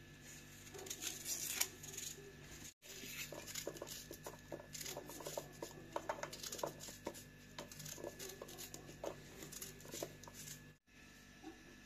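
Raw onion being cut by hand with a small knife, in quick irregular crisp snips, with small diced pieces dropping into a metal pan.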